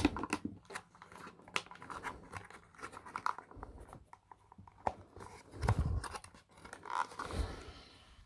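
Plastic and cardboard toy packaging being handled, with scattered small clicks and scrapes and two dull knocks late on.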